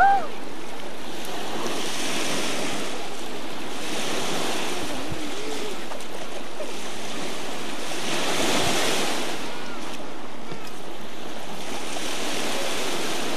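Waves washing and breaking around people standing chest-deep in choppy water: a steady rush that swells every two to four seconds. A brief high cry comes right at the start.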